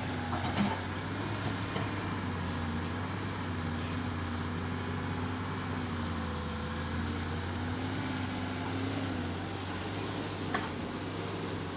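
An engine running steadily at an even speed, with a low hum and a slightly wavering tone above it. There are a couple of faint clicks, one shortly after the start and one near the end.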